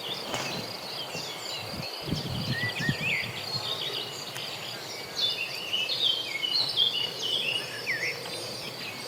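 Many small birds chirping and twittering over a steady, high insect drone, with a brief low rumble about two seconds in.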